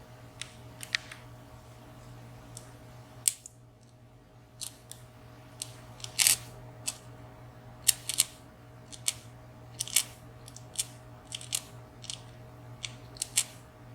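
Irregular light clicks and taps of small metal lock parts being handled and set down: the pins, springs and sliders of a disassembled padlock. A steady low electrical hum runs underneath.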